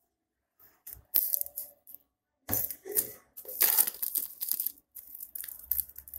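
Plastic shrink-wrap on a phone box being slit with a razor blade and peeled off, crinkling and tearing in irregular bursts that start about half a second in.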